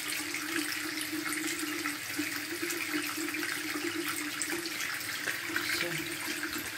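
Steady hiss of water running in a bathroom, with a low steady hum underneath.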